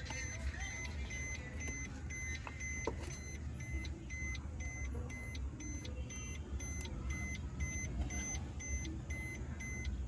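A car's dashboard warning chime beeping steadily, about two short beeps a second, as it does with the driver's door open and the key in the ignition.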